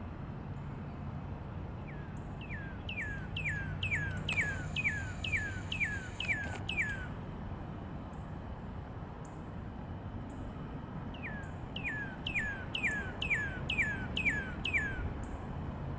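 A songbird singing two phrases of falling whistled notes, about two notes a second, each phrase running about five seconds, the second starting a few seconds after the first ends. A low steady hum runs beneath.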